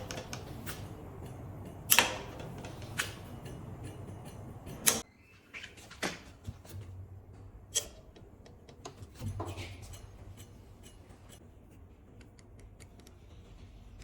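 Irregular sharp clicks and knocks around a bicycle disc brake, several seconds apart, with lighter ticking later on. A steady low hum underneath stops abruptly about five seconds in.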